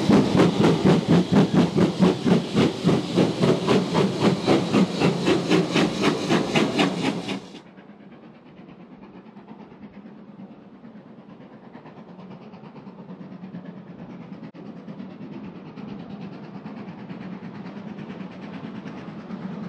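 Steam locomotive working hard, its exhaust beating in a quick, even chuff. About seven seconds in the sound cuts off abruptly to a much quieter steady rumble and hiss that slowly grows louder.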